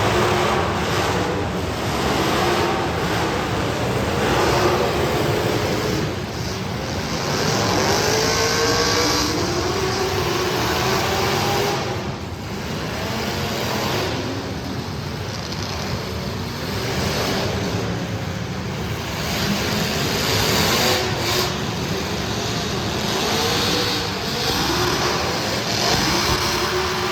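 Street stock race car engines running hard, their pitch repeatedly rising and falling as the cars accelerate and lift off, with several engines overlapping.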